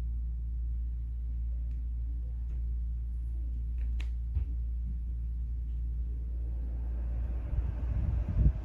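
Steady low rumble of air from a Dreo Cruiser Pro bladeless tower fan. Near the end it breaks into irregular gusts buffeting the microphone.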